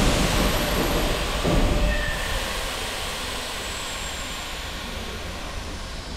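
Subway train running on its rails: a loud, even rumble and hiss, strongest in the first couple of seconds, then easing off steadily.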